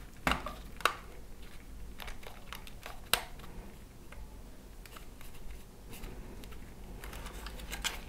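Soft rubber grip being pressed and worked onto the plastic handle of a FlySky GT3C radio transmitter: quiet rubbing and handling noise with a few sharp plastic clicks and taps.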